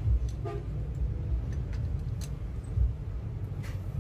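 A few faint, irregular metal clicks and taps from tools working a rocker-arm valve adjuster on a Suzuki F6A engine, over a steady low rumble.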